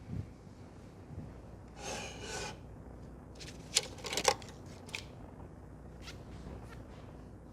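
Hands rubbing briskly over hair and scalp in a head massage, then a cluster of sharp clicks, the two loudest about half a second apart in the middle.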